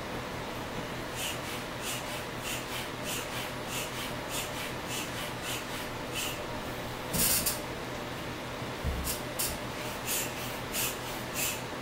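Foot air pump puffing air through its hose into a ball, a short hiss with each push, two or three a second; a longer, louder hiss about seven seconds in and a dull thump about nine seconds in.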